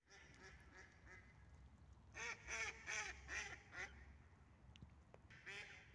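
Mallard ducks quacking: a few faint quacks at first, then a run of about six quacks in quick succession starting about two seconds in, and two or three more near the end.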